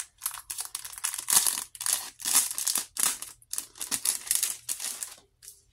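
Small clear plastic bag crinkling as it is squeezed and worked between the fingers: a string of short rustles that dies away shortly before the end.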